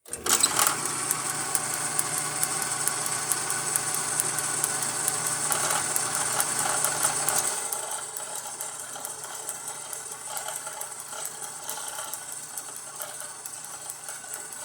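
1929 South Bend lathe starting up abruptly, then running with a steady mechanical hum and rapid, even ticking. It turns noticeably quieter about halfway through.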